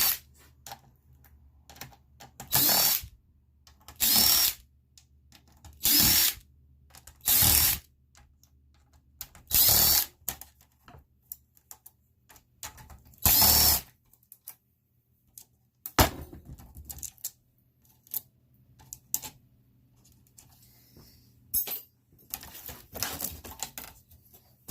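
Power drill-driver backing screws out of an ethernet switch's board and case: about seven short whirring bursts in the first fourteen seconds. Scattered clicks and light rattles of metal parts being handled follow.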